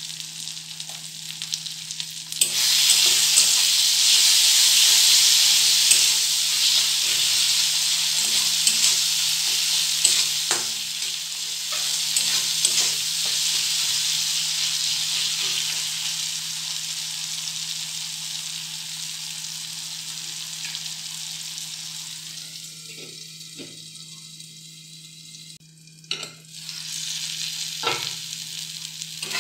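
Onion-tomato masala sizzling in hot oil in a steel kadhai while a steel spatula stirs it, scraping against the pan. The sizzle jumps louder about two seconds in and slowly dies down toward the end, with a steady low hum underneath.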